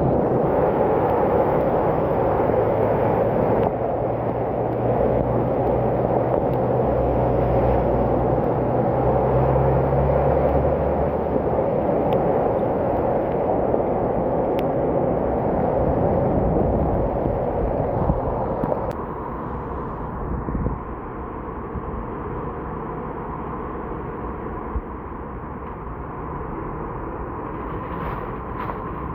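Steady rush of rain and wind noise during a bicycle ride on wet roads in heavy rain. A motor vehicle's rumble passes between roughly four and eleven seconds in, and the noise drops somewhat quieter a little past halfway.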